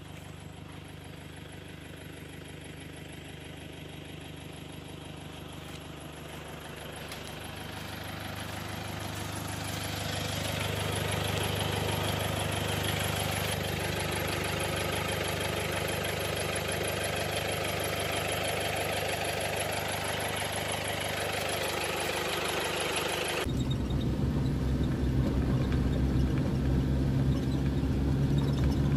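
Motor vehicle engine running: a steady low hum that grows louder over several seconds with a widening rush of noise. Near the end it cuts abruptly to a louder, deeper engine drone heard from inside a car's cabin.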